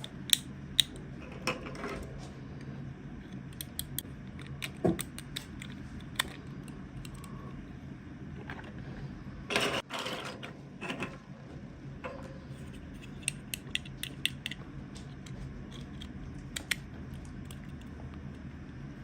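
Small plastic toy pieces and packaging being handled: scattered light clicks and taps, with a longer rustle about halfway through, over a steady low hum.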